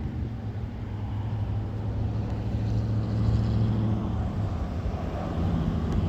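Steady low mechanical hum, growing somewhat louder over the first few seconds.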